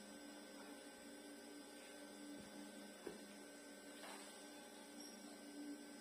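Near silence: a faint steady electrical hum, with one faint click about three seconds in.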